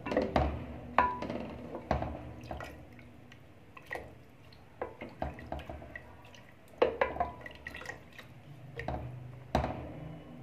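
A ladle stirring watery chicken curry broth in a metal pot: liquid sloshing and dripping from the ladle, with irregular sharp knocks of the ladle against the pot, fewer in the middle.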